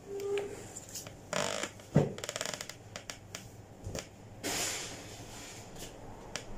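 Laundry being handled: clothes rustling and flapping as they are shaken out, with scattered knocks and clicks, a sharp knock about two seconds in followed by a short rattle.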